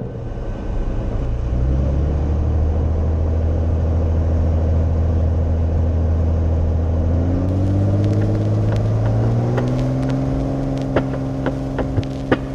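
Cirrus SR22's six-cylinder Continental IO-550 engine and propeller heard from inside the cockpit, running steadily, then rising in pitch over a couple of seconds past the middle as power comes up for the takeoff roll, and holding at the higher pitch. A few sharp clicks sound near the end.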